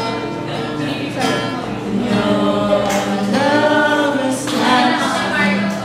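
Acoustic guitar strummed while voices sing a harana, a Filipino serenade song.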